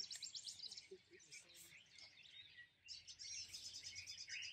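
Faint dawn chorus of several birds calling at once, mostly high chirps and whistles. A fast, evenly spaced trill of high notes sounds at the start and again from about three seconds in.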